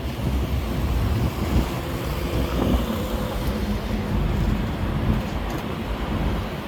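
Steady city traffic noise: passing vehicles make a continuous low rumble, and a faint steady hum joins about halfway through.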